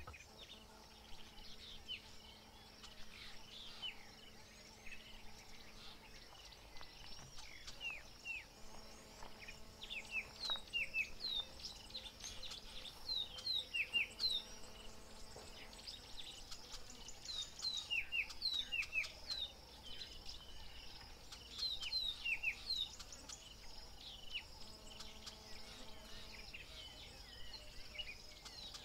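Bush ambience at dusk: birds calling over and over with short, falling whistled notes, above a steady high insect drone. A faint low hum comes and goes.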